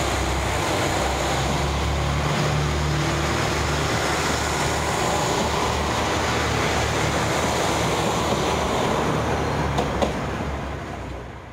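JR Shikoku 2000 series diesel tilting train passing close by, its diesel engines running with a steady low hum under the rumble of wheels on rail. The sound fades away as the last car goes by, with a single sharp click about ten seconds in.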